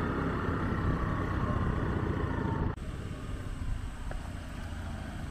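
Small scooter engine and wind rumble from a scooter under way. About two and a half seconds in it cuts suddenly to a quieter, steady engine hum.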